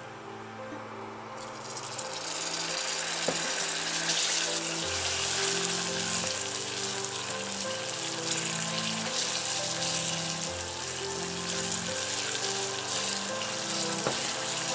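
Hot dry-melted sugar caramel in a stainless saucepan sizzling and bubbling hard as room-temperature butter goes in and is stirred with a silicone spatula; the loud hiss starts about a second and a half in. Soft background music plays underneath.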